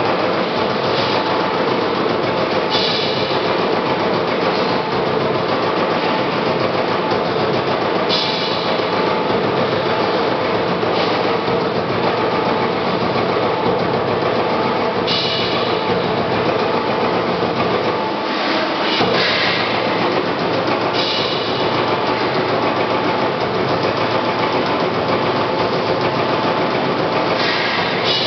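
CNC turret punch press punching sheet metal: a rapid, steady run of hits, with short hisses every few seconds.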